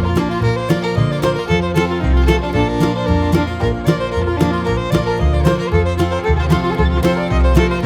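Upbeat background music in a bluegrass style, with fiddle over plucked guitar or banjo and a steady beat.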